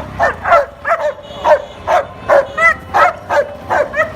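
A dog barking over and over, about two to three barks a second.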